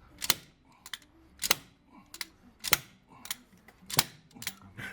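Ratchet wrench clicking as it is worked back and forth on the 17 mm bolt of an injector puller, drawing a seized diesel injector out of the head. Sharp clicks in an even rhythm, alternating loud and soft about every half second.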